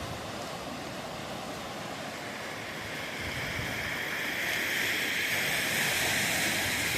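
Pacific Ocean surf: a steady wash of breaking waves that swells louder about halfway through as a wave rushes in.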